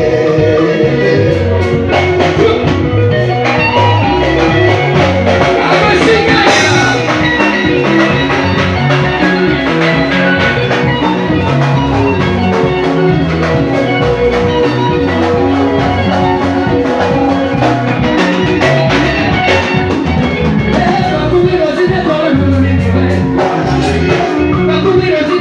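Live band music with singing, driven by a steady beat and a repeating bass line.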